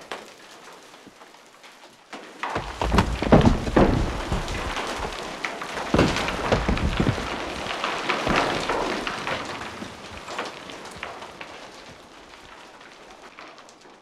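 Rockslide: a light trickle of falling stones, then about two and a half seconds in a sudden heavy fall of rocks clattering and tumbling over a low rumble. It surges again around six seconds in and gradually dies away to a thin trickle near the end.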